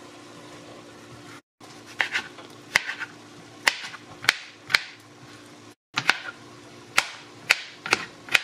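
Kitchen knife chopping pickles on a plastic cutting board: sharp knocks of the blade striking the board at an uneven pace, about one or two a second, after a quiet first second and a half. The sound cuts out briefly twice.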